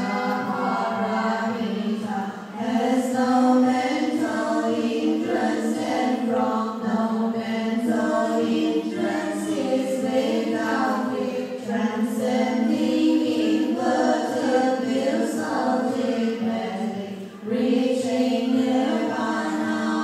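Group of voices chanting a Buddhist liturgical chant in unison, slow long-held notes with short pauses between phrases about two seconds in and near the end.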